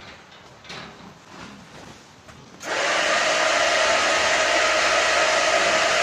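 A feed cart's discharge motor starts abruptly about two and a half seconds in and runs loud and steady, a whirring hiss with a steady whine, as the cart begins delivering feed through its overhead arm and cloth sock into the trough. Before it starts there are only faint knocks and rattles.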